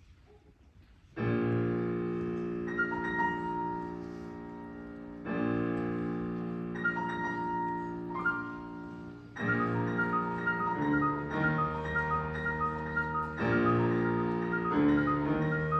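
Piano playing the opening of a choral piece, chords struck about a second in and again roughly every four seconds and left to ring. From about ten seconds in, a quicker pattern of repeated high notes runs over the chords.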